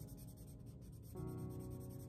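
Piano music, with a new chord coming in about a second in, over the quick scratching of a marker drawing on sketchbook paper.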